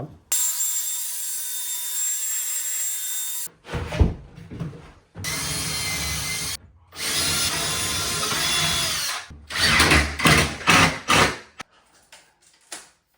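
Power drill running in three bursts of a few seconds each, with a series of sharp knocks and clatter between and after them.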